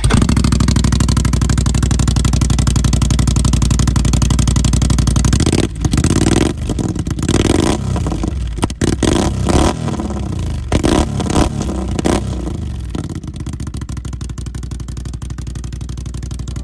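Can-Am XMR 570 ATV's engine running through an RJWC aftermarket exhaust: it idles loudly and steadily, is revved in a series of quick blips about six seconds in, then settles back to a steady idle.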